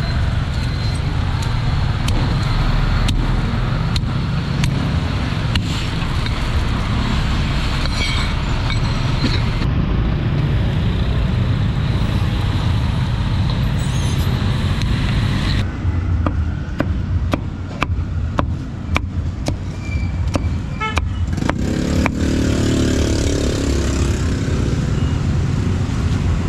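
Steady street traffic noise with car horns tooting, over repeated sharp knocks of a steel cleaver chopping roast pork on a wooden chopping block.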